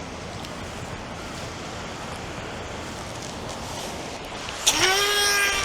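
Surf washing on the beach, then near the end a sharp crack as a beach-casting rod is cast, and the reel's spool starts spinning with a loud, steady whine as line pays out.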